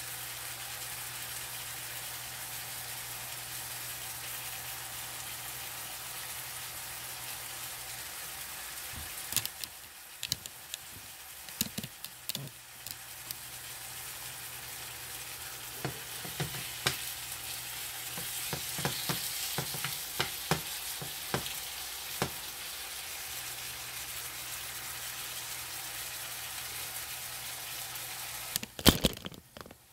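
Diced chicken thighs sizzling in a nonstick frying pan, with scattered pops and crackles, as the chicken browns before going into the oven. A few louder sharp sounds come just before the end.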